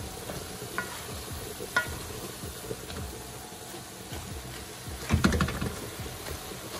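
Wooden spoon stirring and scraping ground turkey in an aluminium pot, the meat sizzling steadily as it browns over high heat. There are a few light clicks of the spoon and a louder thump about five seconds in.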